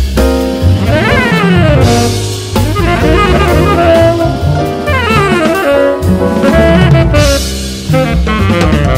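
Jazz band recording: a saxophone plays quick runs that climb and fall over drums and low bass notes.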